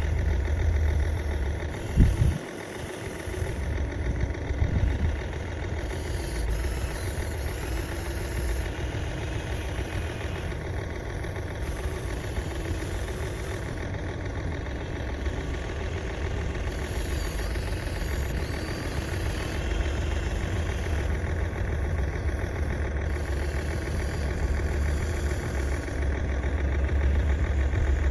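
Steady diesel-like engine idle from an RC model construction vehicle, with one sharp knock about two seconds in.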